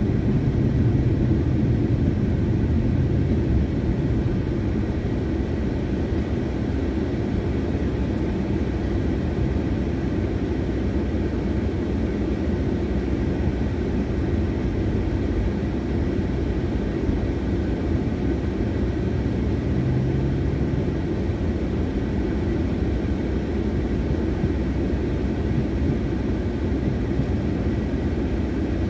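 Car engine and road noise heard from inside the cabin: a steady low rumble that eases a little after the first few seconds as the car slows, then the engine idling while the car stands still.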